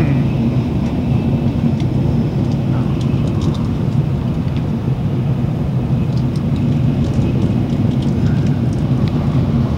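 Steady running noise of a Shinkansen bullet train at high speed, heard inside the passenger cabin, with a constant low hum.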